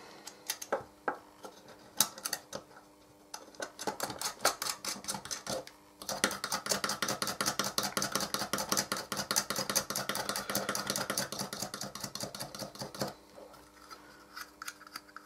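Small metal M3 nut being spun by hand onto a machine screw through a plastic case, giving scattered clicks at first, then a fast, continuous run of clicking for about seven seconds from around six seconds in, which then fades to a few faint clicks.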